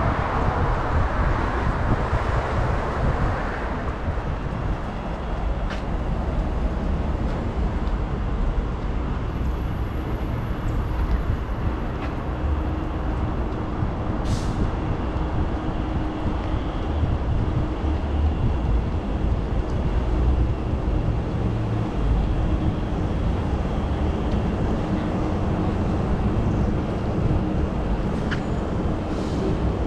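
Steady low rumble of wind and movement noise on a GoPro camera mounted on a walking dog's harness. A single sharp click comes about fourteen seconds in.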